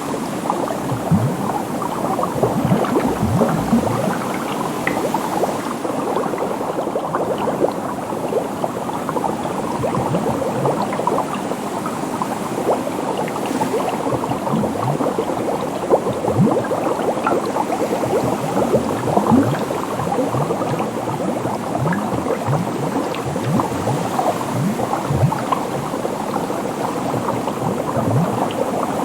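Continuous dense bubbling in water, with many short rising blips from individual bubbles over a steady gurgle.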